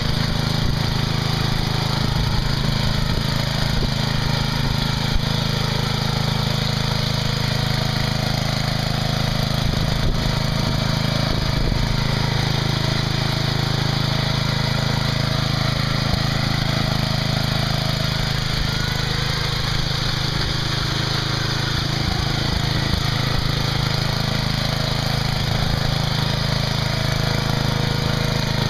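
Small engine of a lifted riding lawn mower on tractor tires running steadily.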